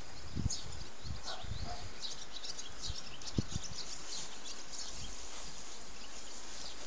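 Outdoor ambience: a steady hiss with faint, short, high chirps scattered through it, and two low thumps, about half a second and three and a half seconds in.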